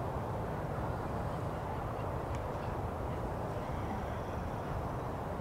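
Steady low outdoor rumble with no distinct event, with a faint high warble about halfway through.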